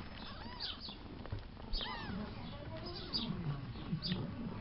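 Newborn kittens mewing in many short, high squeaks, with lower wavering cat cries from about three seconds in.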